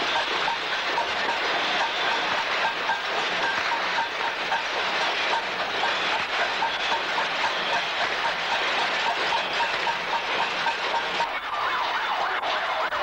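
A cacerolada: many people banging pots and pans, a dense metallic clatter with a steady pulse of strikes a few times a second.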